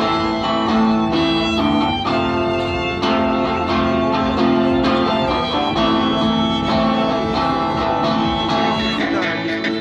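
Violin and acoustic guitar playing a tune together, the violin's held notes over a steady strummed guitar rhythm.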